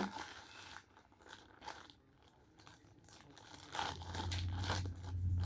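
Cardboard boxes and packaging being handled: rustling and crinkling, sparse at first and denser near the end, with a low hum joining about four seconds in.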